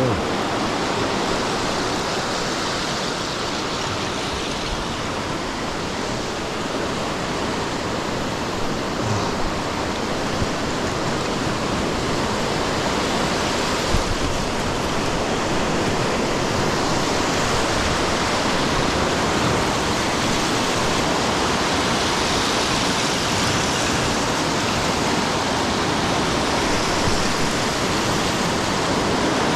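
Lake Michigan waves washing in, a steady rushing noise that never lets up, with a couple of faint knocks.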